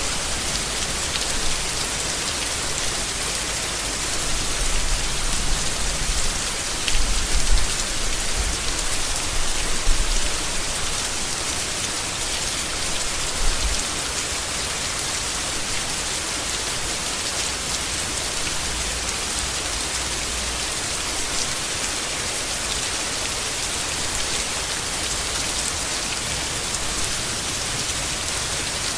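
Steady heavy rain falling on leaves, an even hiss. It carries a few low rumbles between about 4 and 14 seconds in.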